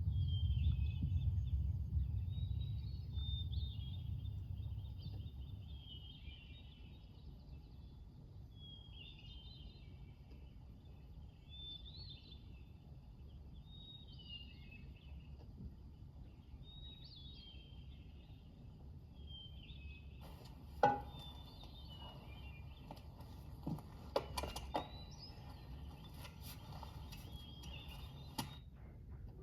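A songbird singing the same short chirping phrase every second or two over quiet outdoor ambience, with a low rumble fading away over the first few seconds. About two-thirds of the way through, a hiss comes in with a few sharp clicks.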